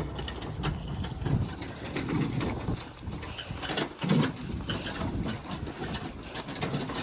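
Irregular metallic clicking and knocking of hand tools working on metal, over a low rumble of wind on the microphone.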